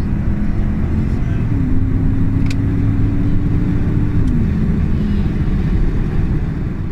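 Straight-piped BMW E39 540i's 4.4-litre V8 droning steadily at motorway cruise, heard from inside the cabin. One tone in the drone steps up about a second and a half in and drops back down near four seconds.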